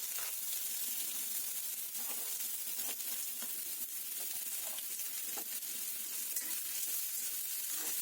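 Chopped onion sizzling steadily in very hot oil in an iron kadhai, as the onion fries, with a few faint light clicks.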